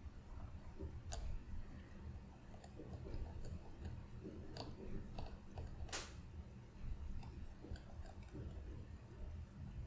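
Faint, irregular small clicks and taps of metal watchmaking tools handling a watch movement, the sharpest about a second in and about six seconds in, over a steady low hum.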